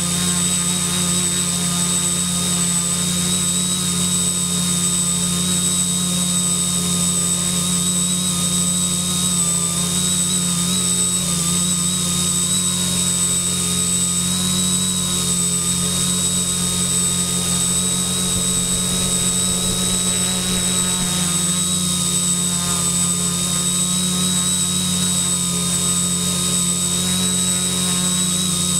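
Quadcopter's brushless electric motors and propellers running steadily in flight: an even whirring drone with steady high-pitched whine tones over it.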